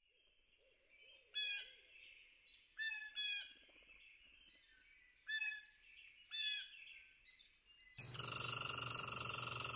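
Wild animal calls: four short, pitched calls a second or more apart. About eight seconds in, a much louder continuous calling starts abruptly and runs on.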